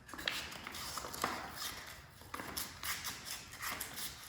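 Scattered light taps and brief scraping rustles at irregular intervals as tools and materials are handled.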